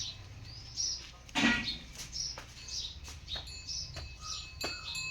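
Small birds chirping in short repeated calls, with scattered sharp clicks or knocks and one louder knock about one and a half seconds in.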